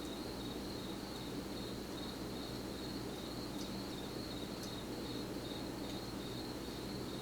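A cricket trilling steadily in rapid pulses in the background. A few faint light clicks are heard about three and a half and four and a half seconds in.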